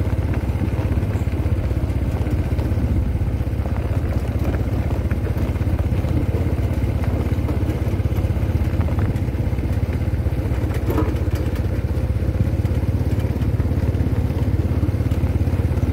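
Vehicle engine running steadily at a constant speed while travelling, a heavy low rumble with a fast even beat.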